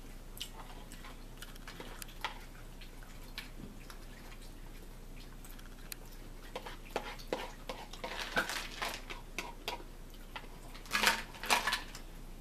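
Eating sounds: a fork clicking and scraping in a salad bowl along with chewing, as scattered short clicks that grow busier and louder in the second half.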